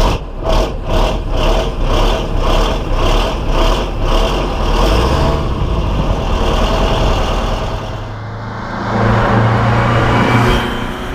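A bus's engine running, pulsing evenly about two to three times a second for the first few seconds, then settling into a steady drone with a deeper tone near the end.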